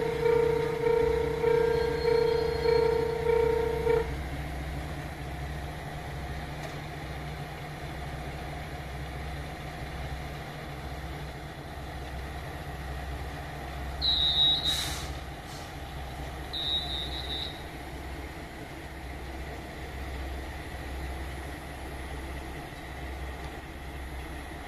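JR Shikoku 1500-series diesel railcars idling at a station platform, a steady low pulsing rumble. A loud, pulsing, alarm-like ringing stops about four seconds in, and two short high beeps with a click come about two-thirds of the way through.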